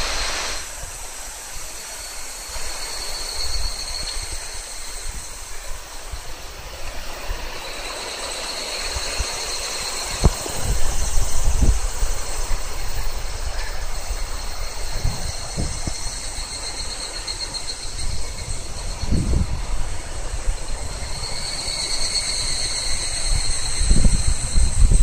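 Higurashi evening cicadas calling in repeated high, pulsing phrases a few seconds long, over a steady high insect drone. From about ten seconds in, low rumbling thumps come and go.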